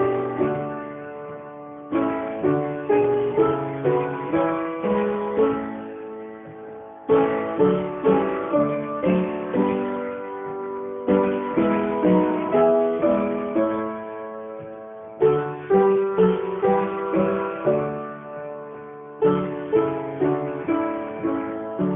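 Instrumental music on guitar: plucked notes in gently decaying phrases, each new phrase starting about every four seconds.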